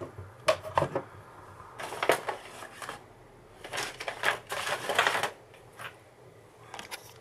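Hard objects being handled and rummaged through: a string of clicks, clatters and rattles in uneven bursts, the longest cluster about four to five seconds in.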